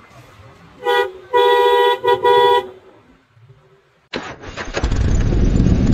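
Motorcycle horn honked in four blasts: a short toot, a longer one, then two quick toots. About four seconds in, loud music starts.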